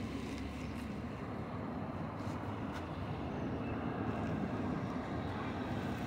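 Steady low rumbling outdoor background noise with no distinct bird calls or other clear events.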